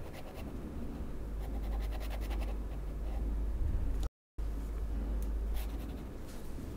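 Pen nib scratching across paper in many short strokes, drawing with fountain-pen ink. The sound cuts out briefly a little over four seconds in.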